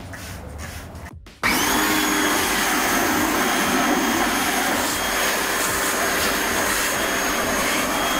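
Pressure washer running steadily with a faint high whine, its water jet blasting grime off a foil-covered exhaust heat shield. It comes in suddenly about a second and a half in.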